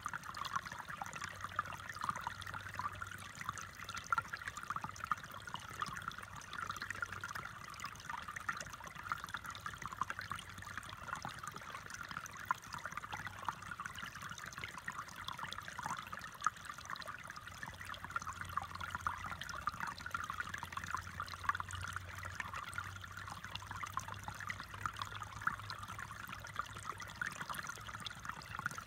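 Shallow stream trickling over stones: a steady babble of many small, quick splashes and gurgles.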